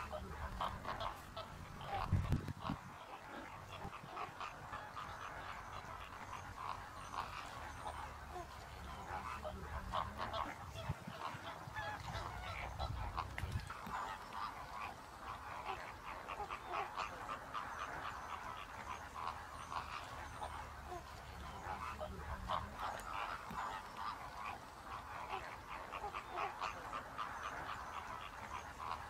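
A large flock of waterbirds calling without pause, a dense goose-like honking chatter. A low thump about two seconds in.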